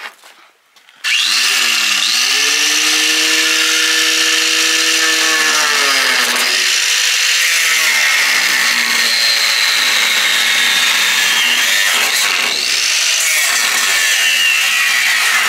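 Corded angle grinder spinning up with a rising whine about a second in, then running steadily as it cuts through the sheet-metal wheel well of a pickup truck bed.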